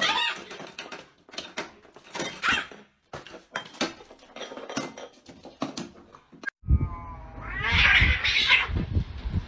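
Two cats fighting on a wooden floor: scattered knocks and scuffling with brief cries, then a loud, wavering yowl from about seven and a half seconds to near the end.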